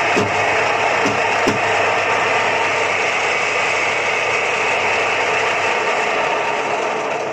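Apple grinder crushing apples: a steady, loud grinding and rasping noise with a few sharp knocks in the first second and a half.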